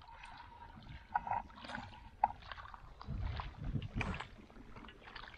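Lake water splashing and lapping at the shore, with scattered small clicks and knocks and a couple of low rumbles about three to four seconds in.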